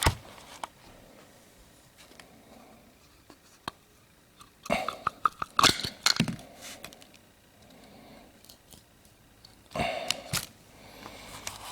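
Scattered knocks, clicks and scrapes of parts being handled, coming in two clusters about five seconds and ten seconds in.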